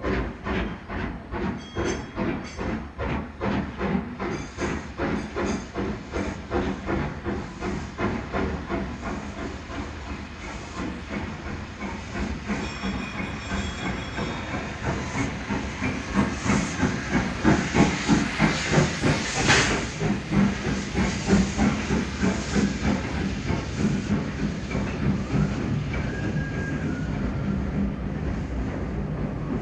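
Steam locomotive working, its exhaust beating at about two beats a second over a steady hiss of steam, getting louder from about halfway through. A sharp short burst of hiss comes a little past two-thirds of the way through.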